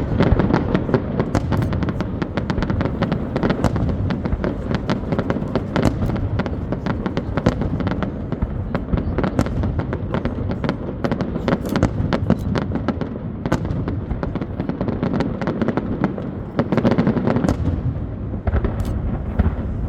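Aerial fireworks display: a continuous barrage of rapid bangs and crackles over a steady low rumble.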